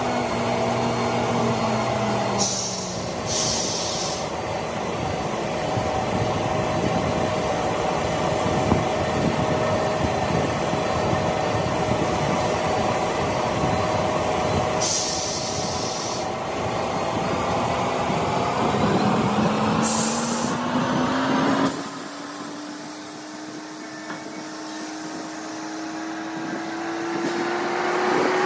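A handheld rotary grinding tool works the buffed rubber of a truck tyre casing, a steady whirring whose pitch drifts, over shop machinery, with three short hissing bursts. Near the end the low rumble drops away and the tool's tone slowly climbs.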